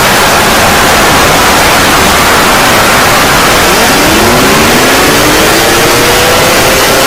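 Loud, harsh static-like noise from a fake emergency-alert sound edit. About four seconds in, a pitched tone with overtones glides upward through it, like a siren winding up.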